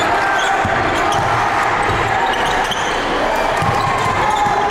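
A basketball bouncing a few times on a hardwood gym court, under the steady noise of a crowd talking in the stands.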